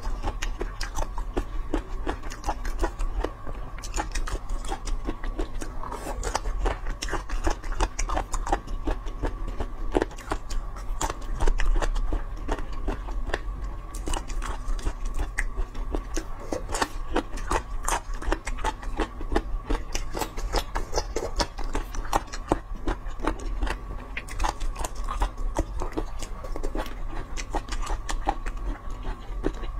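Close-miked chewing of pickled green peppers: wet, crunchy bites and mouth clicks, with the occasional chopstick scrape against the plate.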